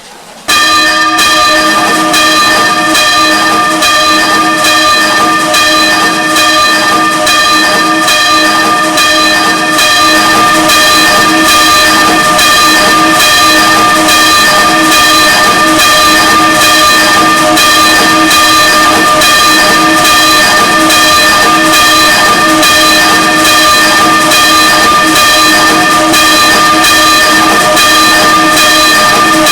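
A single church bell, the sixth bell of a peal, swinging and ringing on its own. Its clapper strikes in a steady rhythm, and the ringing tone is held between strokes. The ringing starts abruptly about half a second in.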